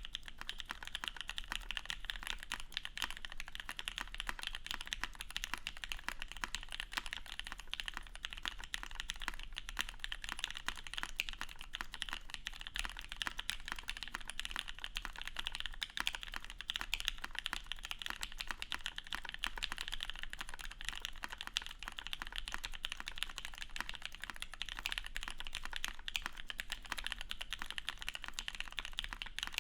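Continuous fast typing on a custom mechanical keyboard with lubed vintage Cherry MX Black linear switches in an aluminium plate and case, topped with SA-profile keycaps: a dense, even stream of keystrokes.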